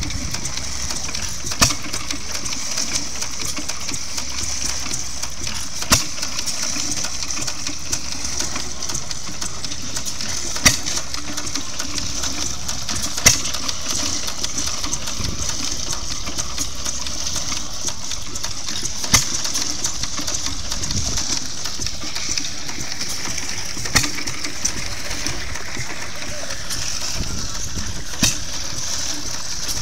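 Antique single-cylinder stationary gas engine driving a piston water pump. Under a steady clatter it fires with a sharp bang only every four to six seconds, seven times, as a hit-and-miss engine does while it coasts between power strokes. Water splashes from the pump's spout.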